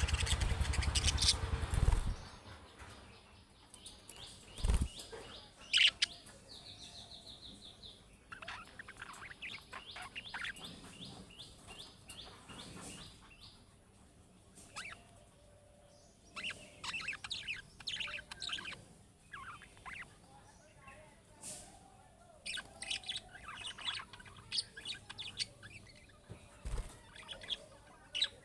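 Budgerigars chirping and warbling in scattered bursts of short high notes, with a quick buzzy trill about six seconds in. A loud rushing noise fills the first two seconds.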